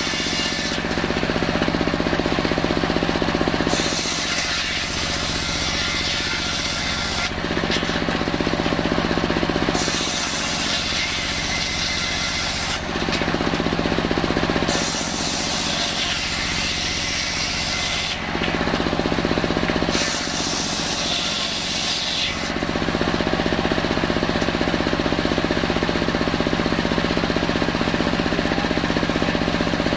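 Large table-mounted circular saw blade running steadily under power while salam-wood boards are fed through it. A constant machine hum runs underneath, and a brighter hiss comes and goes about four times as the blade goes in and out of the wood.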